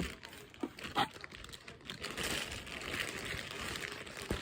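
Crinkling and rustling handling noise from food preparation, with a few light knocks.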